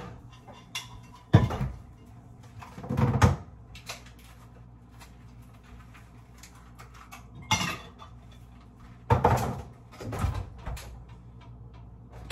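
Kitchen handling sounds: about five separate knocks and clatters a second or more apart, as a cup is set down and a fridge door is opened and shut.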